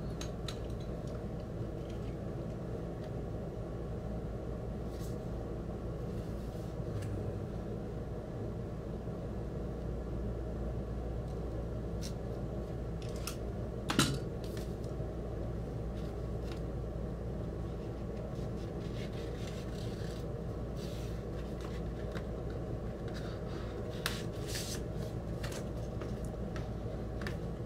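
Record packaging and paper inserts being handled: scattered light clicks and rustles, with one sharper click about halfway, over a steady low room hum.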